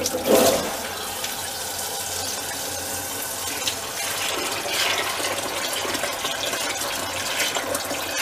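Cold water running from a kitchen mixer tap into a stainless steel pot of drained white beans, a steady pouring stream after the tap is opened at the start. This is the beans being covered with fresh cold water after their first boil.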